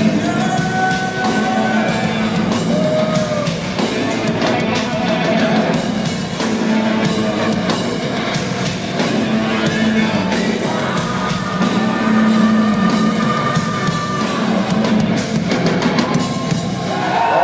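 Hard rock/heavy metal band playing live through a PA, heard from among the crowd: a male singer holding long notes over guitars, keyboards and drums.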